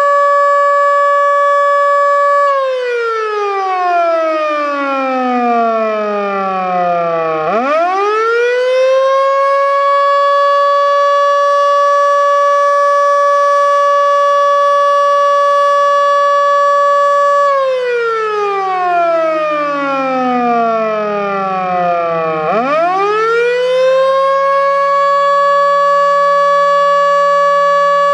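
Federal Signal Model 2 electro-mechanical warning siren sounding a wail. It holds a steady high pitch, then winds down in a falling tone for about five seconds and spins quickly back up to the same pitch. The cycle happens twice.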